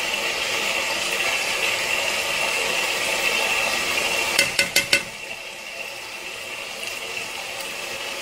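Green beans bubbling and sizzling in a nonstick pan on high heat as the last of their cooking water boils off. About halfway through, a metal spatula clicks against the pan four times in quick succession.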